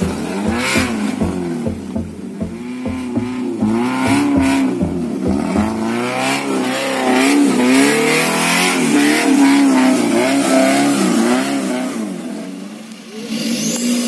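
Off-road Maruti Gypsy 4x4's engine revving, its pitch rising and falling again and again, with a short drop in loudness near the end.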